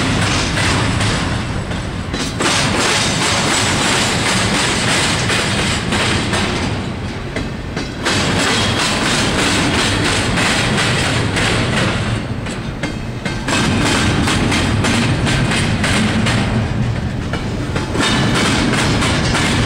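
Intermodal freight train rolling past, its wheels clattering over the rail joints. The sound swells and dips about every five seconds as the cars go by.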